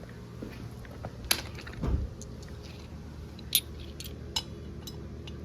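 Metal hand tools and dirt-bike parts clinking, with a few sharp clicks and a dull knock about two seconds in.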